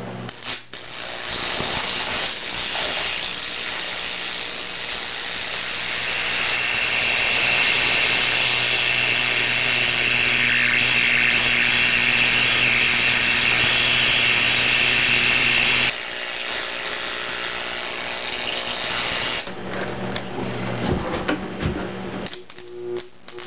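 Homemade carbon arc torch burning between quarter-inch carbon gouging rods, fed by a stick welder at about 100 amps AC: a steady hissing buzz with a mains hum, louder from about six seconds in, cutting off suddenly at about sixteen seconds. A shorter stretch of hiss follows until nearly twenty seconds, then scattered knocks.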